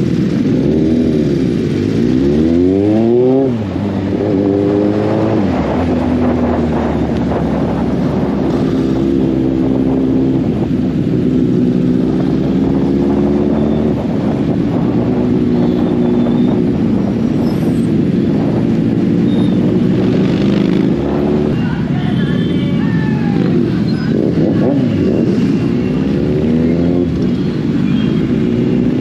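Kawasaki Z800's inline-four engine under way, pulling through the gears. The revs climb from about one to three and a half seconds in and drop at a shift, then hold fairly steady at cruising speed, and climb again near the end.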